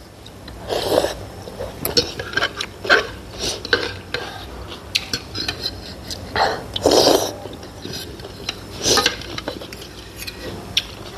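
Metal spoon and fork clicking and scraping against a ceramic bowl of noodle soup while eating, with loud slurps of pork thukpa about a second in, around seven seconds in and near nine seconds.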